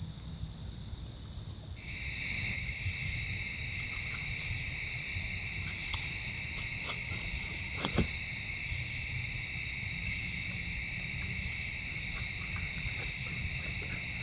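Steady night chorus of crickets: one continuous high-pitched trill, joined suddenly about two seconds in by a second, lower trill that makes the chorus louder. A single sharp click comes about eight seconds in.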